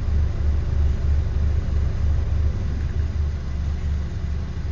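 Car engine idling: a steady low rumble with an even throb.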